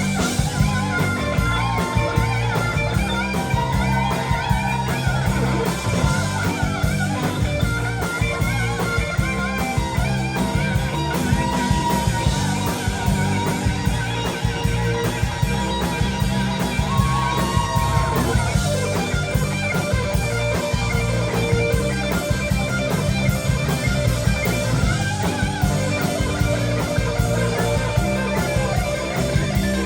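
Live rock band playing an instrumental passage: a lead electric guitar solo with bent notes over bass and drums.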